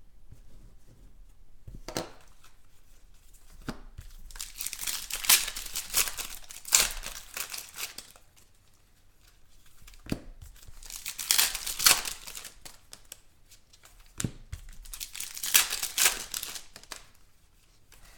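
Trading card pack wrappers being torn open and crinkled in three bursts of a few seconds each, with a few short knocks in between.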